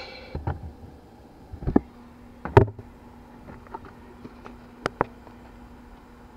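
The scale truck's engine sound dies away at the very start, leaving a few separate sharp clicks and knocks over a faint steady hum that sets in about two seconds in.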